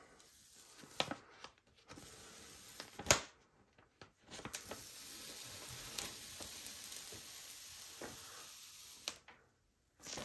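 Adhesive backing paper being peeled off a vinyl decal: a steady crackling hiss for several seconds, after paper-handling rustles and a sharp snap about three seconds in.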